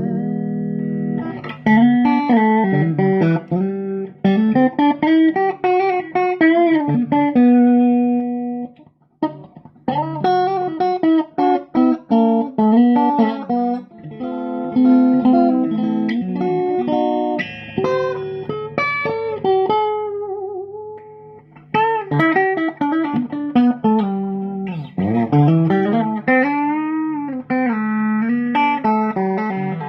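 Vintage Stratocaster electric guitar played solo in melodic lead phrases, with several string bends. The playing pauses briefly about nine seconds in and again around twenty-one seconds.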